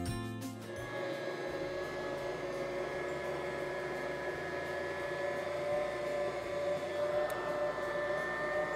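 Bosch stand mixer motor running steadily with a faint whine as it kneads a large batch of bread dough, starting about a second in and stopping near the end.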